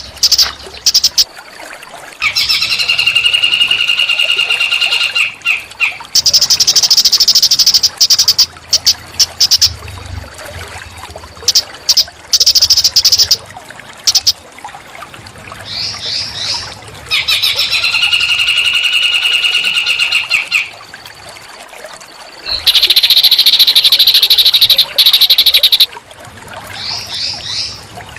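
Small songbirds singing on a masteran birdsong-training recording: loud, high-pitched buzzy trills and held calls in phrases a few seconds long, repeating with short pauses between.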